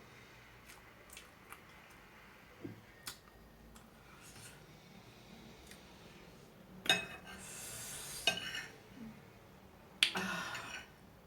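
Small spoon clinking against a dish and scraping across it twice, each time starting with a sharp tap, with a few faint clicks of eating before.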